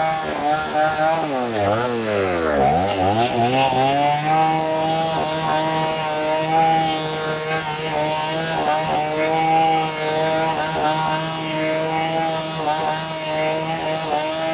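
Two-stroke chainsaw engine running at high speed. About two seconds in, its pitch drops sharply and then climbs straight back. After that it runs steady and high with small wavers.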